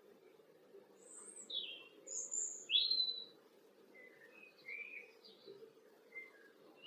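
Garden songbirds chirping: a string of short, high notes and quick sweeps, the loudest about three seconds in, over a steady low background noise.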